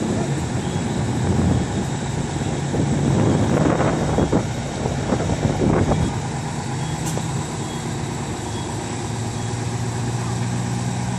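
Parked fire engine's engine idling steadily, a low even hum. Over the first six seconds or so it is mixed with louder, uneven rumbling that then dies down.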